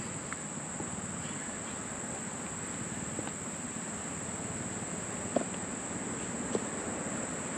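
Steady high-pitched chorus of insects, like crickets, droning without a break. A couple of soft knocks come near the end.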